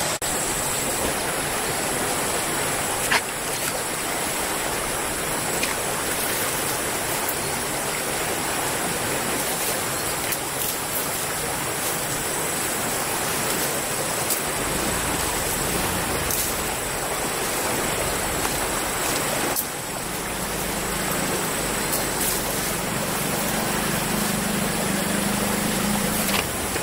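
Steady rush of flowing river water, with one brief knock about three seconds in.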